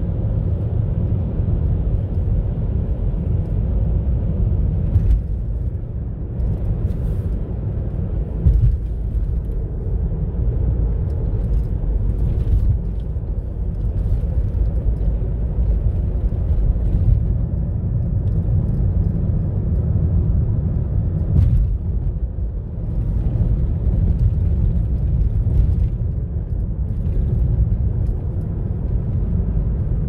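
Car cabin road noise while driving: a steady low rumble of tyres and engine, with a few light knocks from bumps along the way.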